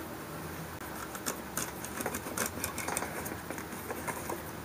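Irregular light metallic clicks and scraping as the bolt spring and its guides are pushed into the action-spring tube of a Remington Model 11 (Browning Auto-5 type) shotgun. The clicks come thickest from about one to three seconds in.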